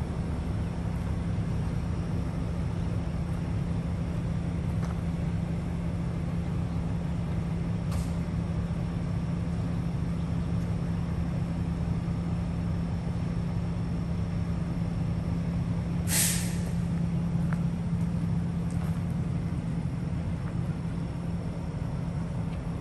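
Semi truck's diesel engine idling steadily, with one short air-brake hiss about two-thirds of the way through.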